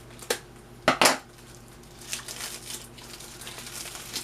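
Three sharp knocks from items being handled and set down during unpacking, followed by a couple of seconds of crinkling of printer-paper packing.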